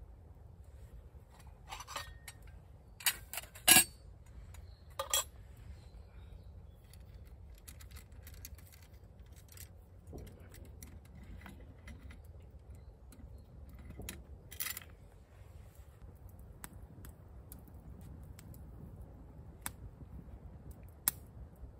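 Metal clinks and rattles from a stainless steel billycan, its lid and the chain it hangs from as it is set over a campfire, loudest a few seconds in, with another clink about fifteen seconds in. Scattered faint ticks from the wood fire in between.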